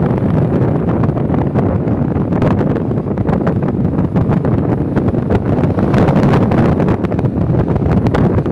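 Wind buffeting the microphone, steady and loud, with a boat engine running underneath.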